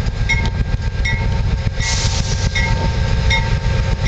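Loud, steady low rumble of running machinery, with a short high squeak repeating about every three quarters of a second and a brief hiss about two seconds in.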